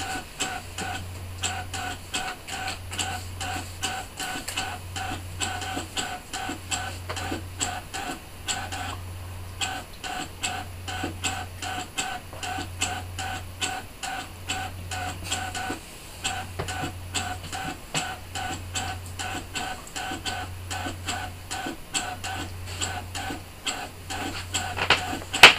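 Brother ScanNCut DX SDX1200 cutting machine running a drawing pass with a foil tool: its motors whir in a regular repeating pattern, with quick ticks several times a second as the carriage and mat move. A louder click comes near the end.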